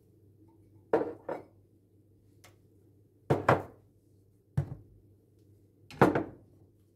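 Kitchen items being handled and set down on a countertop: a string of sharp knocks and clunks, two close together about a second in, two more near the middle, one at about four and a half seconds, and the loudest about six seconds in.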